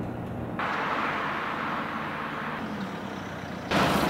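A Suzuki car driving: steady rushing engine and road noise, louder about three and a half seconds in.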